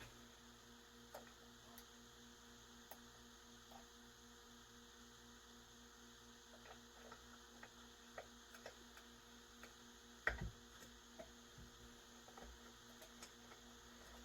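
Near silence over a steady low electrical hum, with faint scattered clicks and taps of small parts being handled while fitting a chainsaw carburetor's choke linkage, and one soft knock about ten seconds in.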